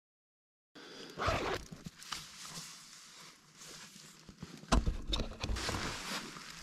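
Tent fabric rustling and being handled in short irregular bouts, with a louder knock nearly five seconds in.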